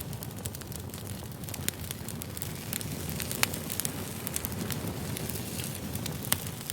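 Campfire burning steadily with a low rumble, wood crackling and snapping in frequent sharp pops.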